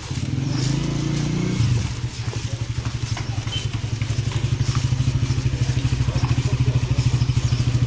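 Small motorcycle engines in street traffic: one engine's pitch shifts and drops away about two seconds in, then an engine runs steadily close by with a rapid, even putt-putt that grows a little louder.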